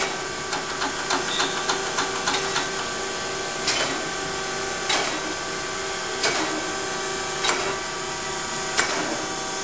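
Chevalier FSG-1224AD hydraulic surface grinder running in its automatic cycle, feeding the wheel down toward its zero stop: a steady machine hum with a sharp clack repeating about every one and a quarter seconds.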